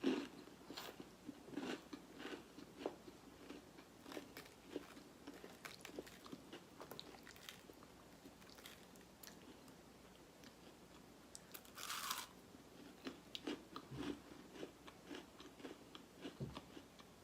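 A person eating close to the microphone: quiet, wet chewing with scattered small crunches of crispy garlic toast and creamy Alfredo pasta, and one sharper, louder crunch about twelve seconds in.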